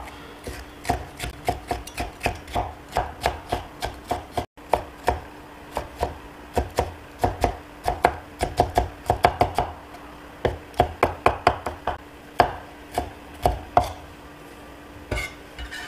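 Chinese cleaver dicing a green bell pepper on a wooden cutting board: a quick, even run of chops, about four a second, with a brief pause partway through, stopping near the end.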